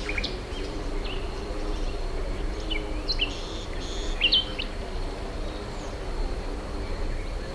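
Countryside ambience: scattered bird chirps and short calls, most of them a few seconds in, over a steady low background murmur of distant rural noise.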